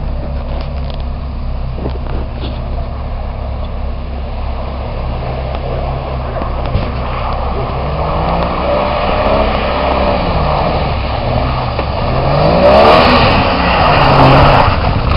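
Off-road 4x4 SUV engine working through deep mud, its revs rising and falling again and again as it pushes along the rutted track. It grows louder toward the end as the vehicle comes close.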